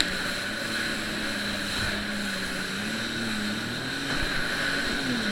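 Jet ski engine running under way at steady speed, its note swelling up and dipping back a couple of times near the end, over a steady rush of wind and water.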